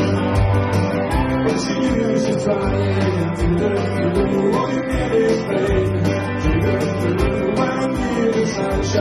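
Live band music: electric guitar, bass guitar and a Nord Stage keyboard playing over a steady beat.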